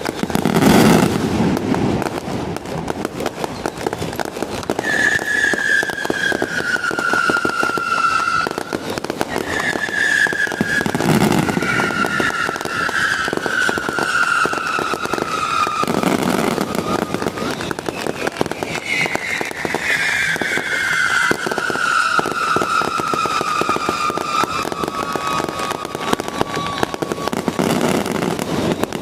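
Long strings of firecrackers crackling without a break, with louder bangs a few times. Over the top, high whistling tones slide slowly downward, each lasting a few seconds.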